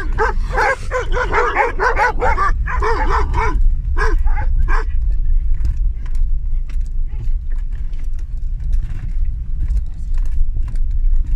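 Several sheepfold guard dogs barking rapidly and overlapping, heard from inside a moving car over a steady low engine and road rumble. The barking is densest in the first five seconds, then becomes sparser and fainter.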